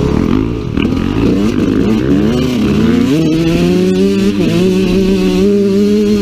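Dirt bike engine revving, its pitch climbing and dropping repeatedly with the throttle, then holding a steady high note from about halfway through.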